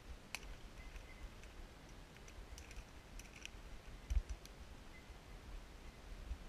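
Faint scattered snaps and clicks of twigs and brush in undergrowth, a few at a time, bunched around the middle. Low rumble on the microphone with one dull thump about four seconds in.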